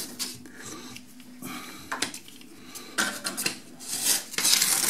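Utility knife blade scraping and slicing through the paper covering of wooden track-bed pieces in short irregular strokes, with small clicks. The paper rustles louder near the end.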